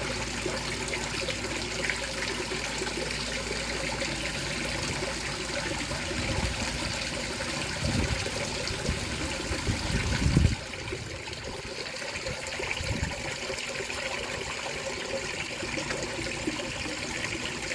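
Light rain falling as a steady even hiss with trickling water. Low gusts of wind buffet the microphone for a few seconds midway and cut off suddenly.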